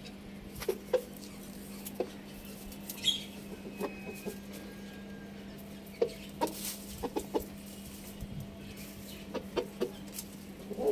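Chickens clucking in short, soft, scattered notes while pecking and scratching in straw, with sharp ticks of beaks striking the ground, over a steady low hum.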